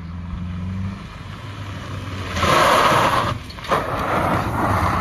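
Renault Clio Mk2 car running: a steady low engine hum, then a loud rushing noise from about two and a half seconds in, briefly dipping, with a sharp click just before the four-second mark.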